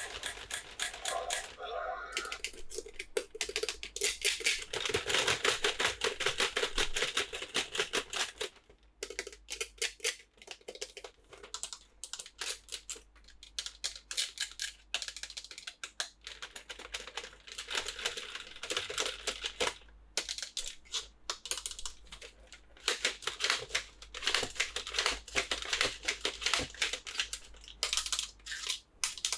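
Dense, quick clicking and crinkling of plastic packaging and plastic toy figures being handled as dinosaur toys are unboxed. The clicks are thickest in the first third and again near the end, and sparser in between.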